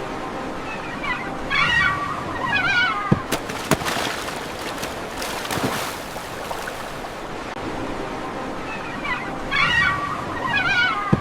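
A bird singing a short warbled phrase twice, about eight seconds apart, over a steady rushing background noise, with a couple of sharp clicks a little after the first phrase.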